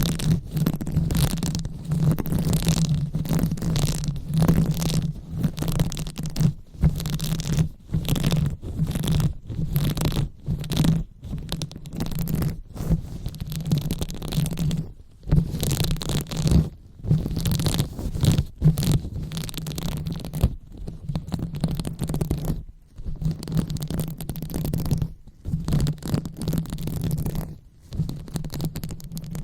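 Close-up ASMR 'brain massage': hands rubbing and scratching over a microphone in uneven strokes with short pauses, over a muffled low rumble.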